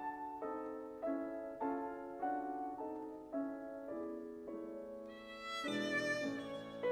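Grand piano playing classical music: evenly spaced chords, a little under two a second, each struck and left to die away. About five seconds in they grow brighter and fuller.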